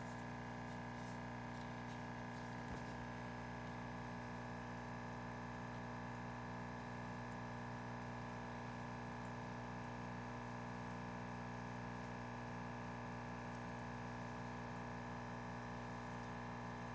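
Steady low electrical hum made of several constant tones, with no other sound standing out.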